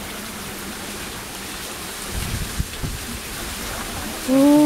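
Wooden water wheel turning, water splashing and pouring off its paddles in a steady rushing spatter, with a few low knocks about two seconds in.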